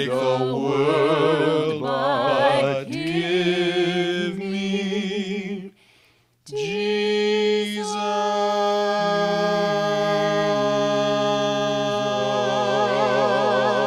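A trio of voices, two men and a woman, singing a hymn in harmony with vibrato. After a short break about six seconds in, they hold one long final chord, the lower part shifting pitch partway through.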